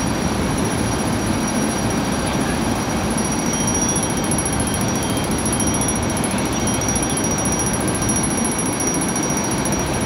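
Fire apparatus engine and pump running steadily, a low constant drone, with a few faint short high beeps about four seconds in.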